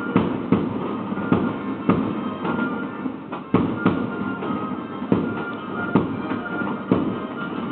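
Fireworks bursting in a display, a string of sharp bangs at irregular intervals, about one or two a second, over music.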